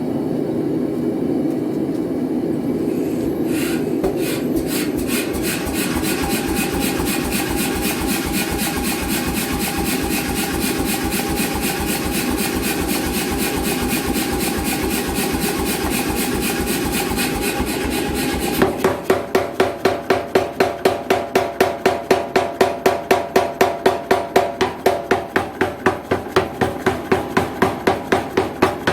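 An 88 lb C41 self-contained air power hammer running, its ram striking in a fast, even rhythm. About nineteen seconds in, the blows turn louder and more distinct, at about four a second.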